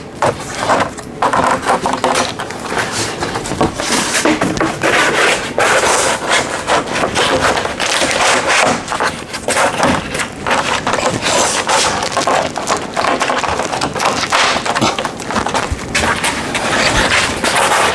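A rigid joist-liner panel scraping, crackling and knocking as it is pushed and fitted into a wall cavity between the framing, with many short knocks throughout.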